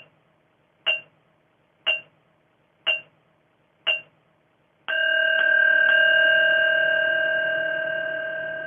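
Countdown timer's bell chime: five short pings of the same pitch, one each second through the last seconds, then a long bell tone about five seconds in as the timer reaches zero, ringing on and slowly fading.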